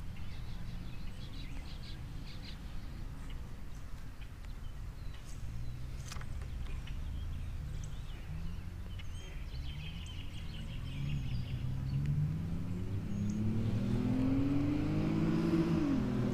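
A motor vehicle passing, its engine rising in pitch over the last several seconds and dropping sharply near the end, over a steady low rumble. A few faint bird chirps in the first half.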